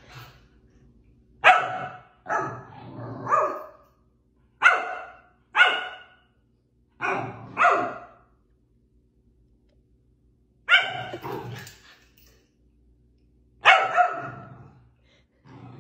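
Husky barking repeatedly: about eight short, pitched barks, several coming in quick pairs, with brief pauses between them.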